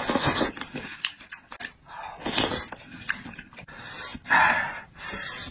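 A person eating noisily close to the microphone: chewing and mouth clicks, with a loud breathy hiss about every two seconds.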